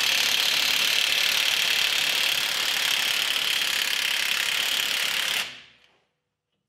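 Cordless impact wrench hammering steadily on a leaf-spring U-bolt nut under the truck's rear axle, then cutting off suddenly about five and a half seconds in. It is loud.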